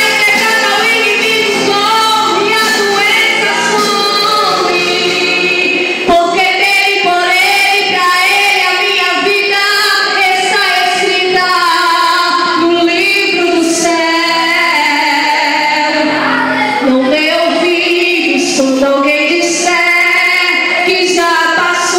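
A woman sings a gospel song into a microphone over a sustained instrumental accompaniment. There is a brief knock about six seconds in.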